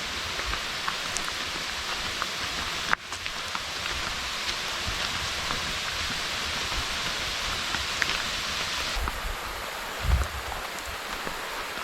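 Waterfall: a steady rush of falling water with small splashes scattered through it. There is a brief break about three seconds in, and a low thump near the end.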